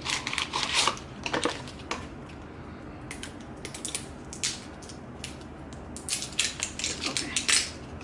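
A cardboard box of contact solution being opened by hand: a run of crackles, clicks and scrapes, in two busy spells at the start and again near the end, with scattered ticks between.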